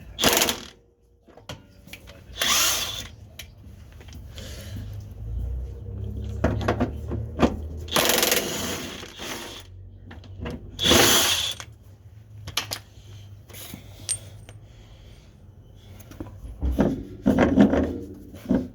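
Power tool run in several short bursts of about a second each, loosening suspension bolts, with a few sharp metal clicks between.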